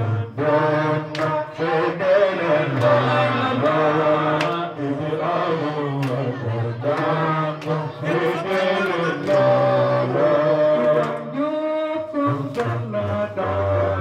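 Men chanting an Arabic religious praise poem (qasida) through microphones and a loudspeaker, in long held, gliding notes, with hand claps here and there.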